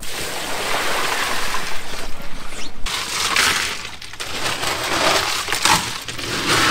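Ice and water dumped from a bucket into a boat's fish box over the catch, the ice clattering and splashing for about three seconds, followed by a few shorter rattles of ice as the fish are iced down.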